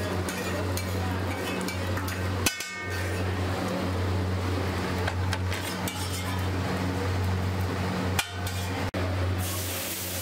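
Metal spatula clinking and scraping on a large flat iron griddle (tawa) over a steady low hum. Near the end, water poured onto the hot griddle hisses loudly as it turns to steam, cleaning the tawa.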